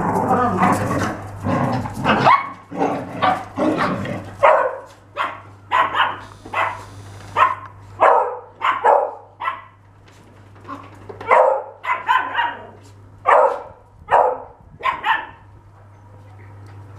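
Dog barking in a string of short, sharp barks: a dense stretch of overlapping barks in the first few seconds, then single barks about once a second that stop shortly before the end.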